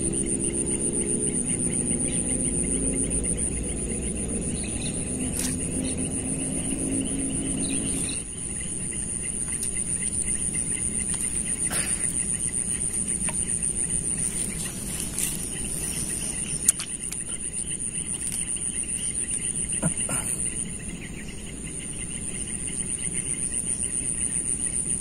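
Steady high-pitched chorus of insects at the waterside. A low motor drone underlies the first eight seconds and then cuts off, with a few faint clicks scattered through.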